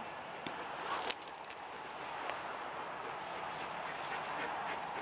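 Metal tag and leash clip on a dog's collar jingling briefly, a quick cluster of chinks about a second in, over a steady faint rustle.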